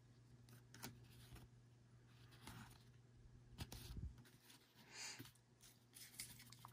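Faint soft clicks and rustles of trading cards being flipped through by hand, over a low steady hum.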